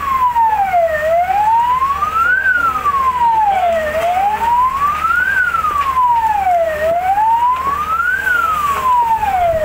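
Fire engine siren wailing, rising and falling slowly in pitch, about one rise and fall every three seconds.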